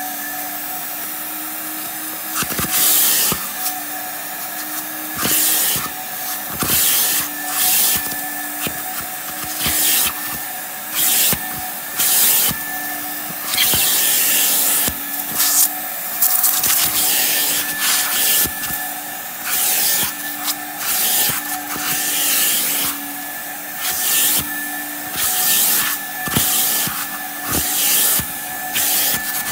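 Portable hot-water carpet extractor running with its upholstery hand tool: a steady vacuum-motor hum, broken by repeated short hissing bursts, about one every second or two, as the tool sprays solution into the couch fabric and sucks it back out.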